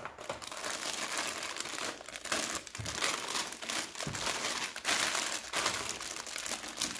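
Clear plastic bags full of LEGO pieces crinkling and rustling as they are handled and lifted out of a plastic tray, with a few soft knocks about three and four seconds in.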